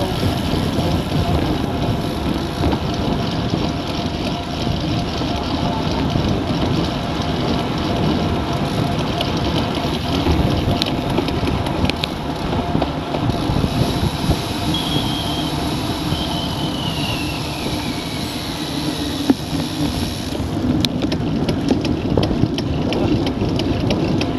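Steady wind rush and tyre noise on an action camera's microphone on a road bike riding at about 40 km/h. A faint whistle slides down in pitch past the middle, and near the end there is a run of rapid ticking.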